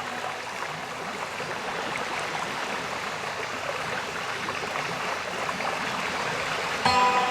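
Steady rush of water from a cascading waterfall. Near the end, sustained background music notes come in over it.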